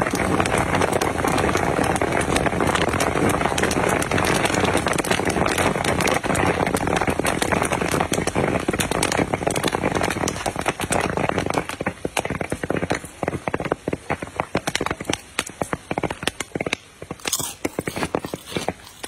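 Popcorn kernels popping in a large wok: a dense, continuous crackle of pops that thins after about ten seconds into scattered single pops as the batch finishes popping.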